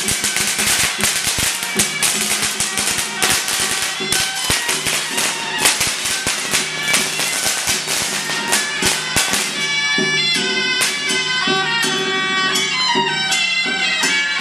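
Taiwanese Taoist ritual music: a shrill reed-horn melody over dense percussion strikes, the strikes thinning out about ten seconds in while the melody carries on.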